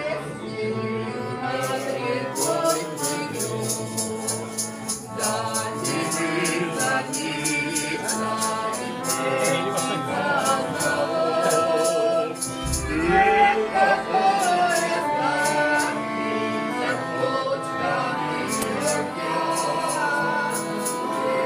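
Piano accordion playing a folk tune at a table, with voices singing along, a woman's among them, over a steady beat of sharp strikes.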